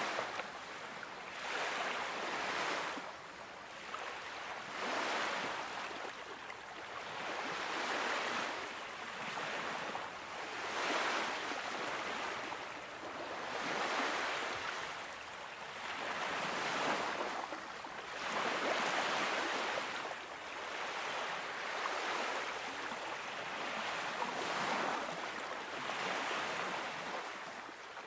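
Small waves of the Baltic Sea washing onto a sandy beach, the surf swelling and falling away every two to three seconds. It fades out near the end.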